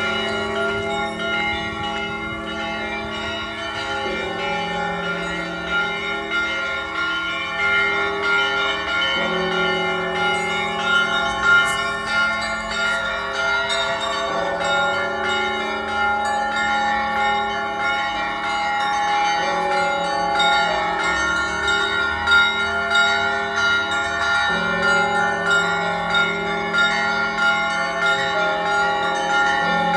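Cathedral bells rung together in an Orthodox-style peal: a quick, steady pattern of strikes on the smaller bells over the ringing of larger bells. The deepest tone changes every five seconds or so.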